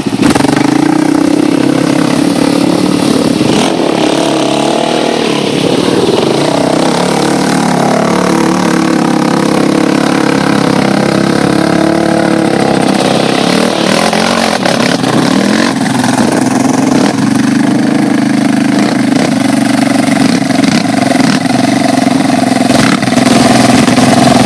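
ATV engines running and revving up and down under load while crossing a river.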